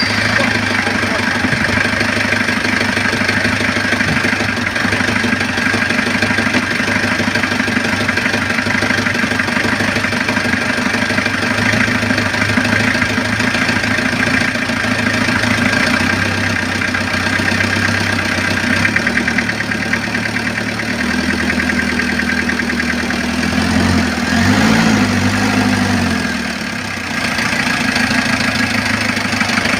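Kia JTA diesel engine idling steadily just after a top overhaul. About three-quarters of the way through, the note shifts and briefly rises and falls in a short rev.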